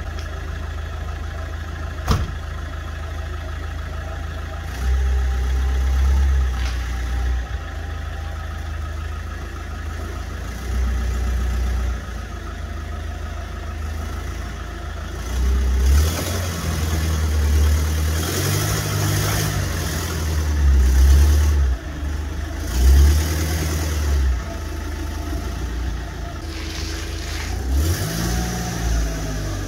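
Diesel engine of an Iveco Daily van idling, revved in short blips a few times and then in a quick run of revs from about halfway through. A van door shuts with a sharp knock about two seconds in.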